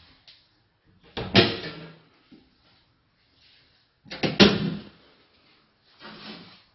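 Interior door being worked by its chrome lever handle: two loud clunks of the handle and latch, about three seconds apart, each with a short ringing tail, then a softer noise near the end.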